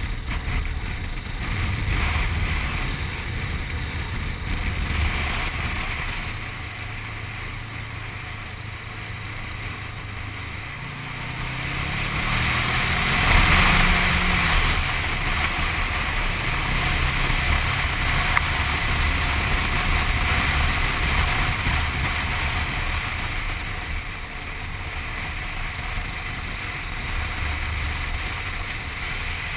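Motorcycle riding at road speed: wind rushing over the microphone with the engine running underneath. A little over ten seconds in, the engine note rises as the bike accelerates, loudest near the middle, then settles to a steady cruise.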